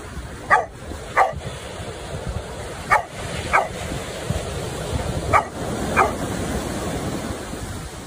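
A dog barking: six short barks in three pairs, each pair about half a second apart, with a couple of seconds between pairs.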